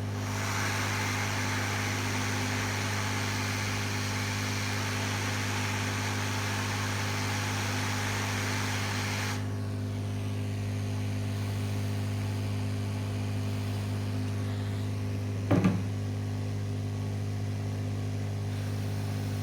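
Hot air rework blower giving a steady rush of air, cut off sharply about nine seconds in; it is heating the board, which is then left to cool. A steady electrical hum runs underneath, and a single short knock comes near the end.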